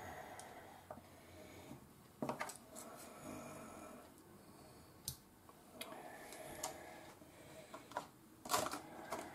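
Faint clicks and rustling from a plastic food tray handled with wooden chopsticks as a pickled plum is picked out, with a few sharp taps, the loudest cluster near the end.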